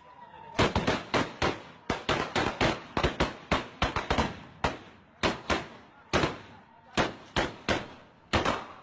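Celebratory gunfire: rifles fired at random into the air, dozens of sharp shots in an irregular string, often two or three close together, with a short lull about five seconds in.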